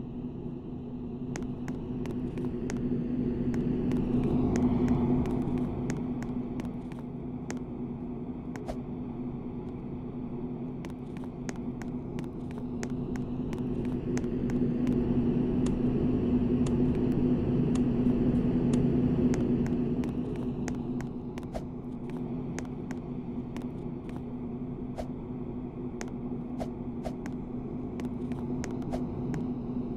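KDK D15ZM ceiling fan running with a steady motor hum. The hum swells louder twice, and faint irregular clicks sound throughout.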